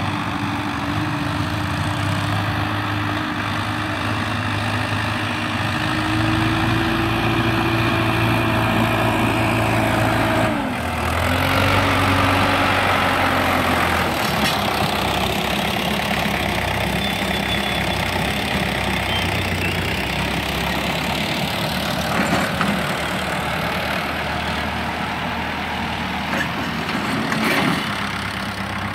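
Preet 60 hp tractor's diesel engine running steadily under load while dragging a rear leveller blade through soil. The engine note rises and falls, and the sound changes abruptly a couple of times.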